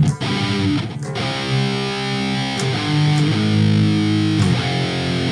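First Act electric guitar played through an amp with distortion: a heavy riff of sustained chords that change every second or so.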